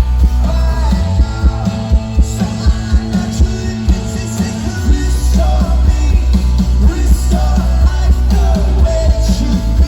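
Rock band playing live, with drums keeping a steady beat, bass and guitars, and singing. The low bass grows fuller about five seconds in.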